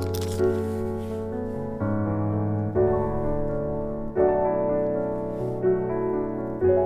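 Background music: solo piano playing a gentle melody over chords, a piano cover of a K-pop song.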